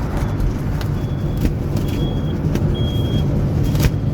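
Vehicle running on the road, heard from inside the cab: a steady low engine and road rumble with scattered rattles and clicks. Three short high-pitched tones sound about one, two and three seconds in, each longer than the last.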